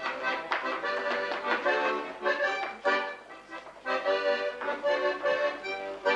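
Accordion playing a lively tune in short, separated chords.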